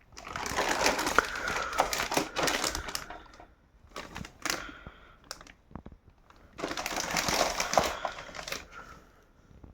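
Plastic packaging crinkling and rustling in two stretches, with a few sharp clicks and knocks in between, as a new room heater is unwrapped and handled.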